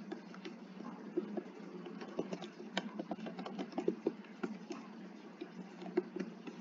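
Typing on a computer keyboard: single keystrokes clicking at a slow, uneven pace, a few a second, while a practice test of JavaScript code is typed out.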